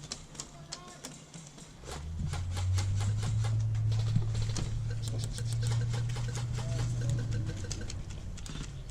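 Airsoft gunfire: many sharp snaps and clicks, with a steady low buzz from about two seconds in until shortly before the end.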